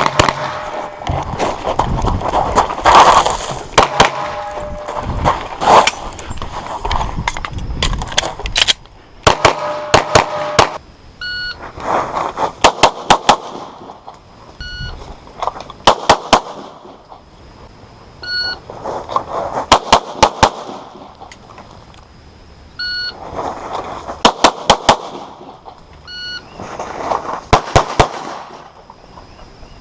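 Glock 34 9mm pistol fired in quick strings of a few shots each. Short electronic beeps, typical of a shot timer's start signal, each come a second or so before a string; this beep-and-string pattern repeats about five times in the second half.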